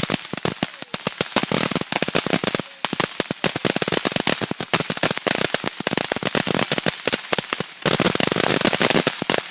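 A string of firecrackers going off: a long, dense run of rapid sharp pops with a couple of brief breaks, stopping abruptly near the end.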